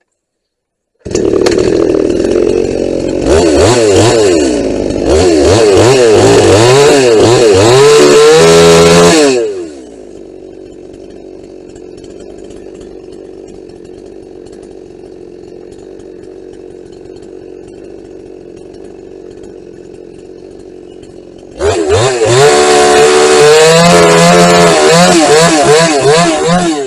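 Vintage Husqvarna two-stroke chainsaw running at high revs, its pitch wavering as it cuts branches off a felled tree. It drops to a steady idle about nine seconds in, then revs back up for more cutting near the end.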